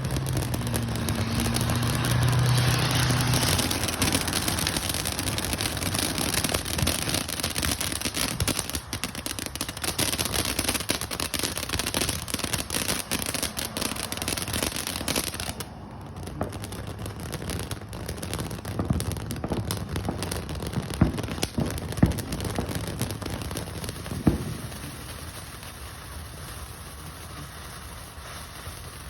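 Fireworks display going off, with dense continuous crackling for about the first half. The crackling then thins out, and a few sharp single bangs come in the second half.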